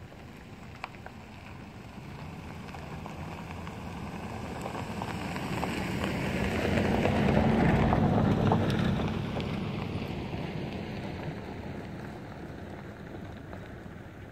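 A passing vehicle: a low rumble that swells slowly, is loudest about eight seconds in, then fades away.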